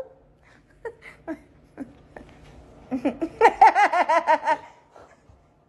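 A woman laughing: a few short breathy sounds early on, then a run of giggles about three seconds in, lasting a second and a half.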